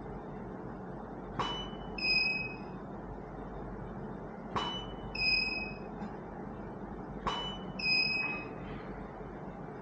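Camera shots in a portrait session: three sharp shutter-and-flash clicks about three seconds apart, each followed about half a second later by a short, high two-tone electronic beep from the flash gear.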